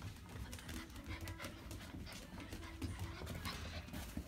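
Puppies scampering on a hardwood floor, their claws clicking and tapping in quick, irregular steps.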